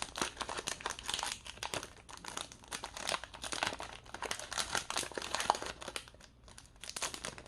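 Foil wrapper of a Pokémon booster pack crinkling and tearing as it is opened by hand: dense, irregular crackling that eases off briefly near the end.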